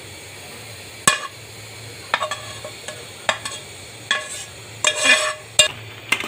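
A spoon knocking and scraping against a metal pan as fried grated carrot is tipped into simmering milk, with a short rushing scrape about five seconds in.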